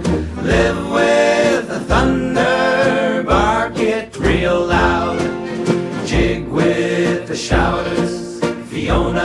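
A song playing: sung vocals over instruments, with a low bass beat recurring about every second or so.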